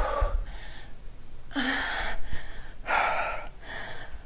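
A woman breathing hard from exertion: three loud, breathy gasps and exhales about a second apart, with a brief low thud right at the start.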